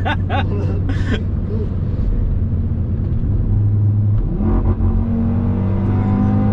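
Car engine heard inside the cabin: a steady low drone, then from about four seconds in a clear engine note climbing slowly and evenly in pitch as the car accelerates through one gear.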